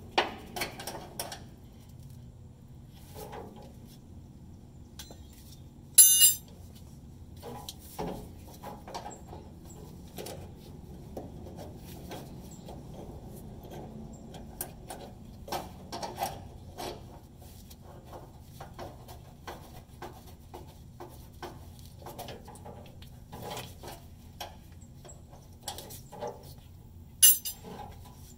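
Metal hand tools clicking and clinking against the steel fuel lines and fittings of a pickup's fuel tank as a wrench works on them. Scattered light taps and knocks, with two sharp, loud metallic clinks, one about six seconds in and one near the end.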